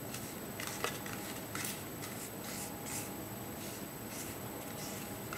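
Small plastic spoon stirring and scraping a damp candy-powder mix against the sides of a plastic tray: light, irregular scratchy scrapes, about one or two a second.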